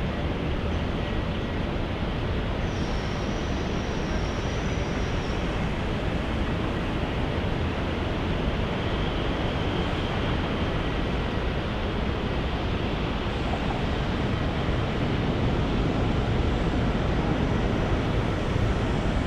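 Jet airliner engines running as a steady rushing noise that slowly grows louder toward the end, with a faint high whine a few seconds in.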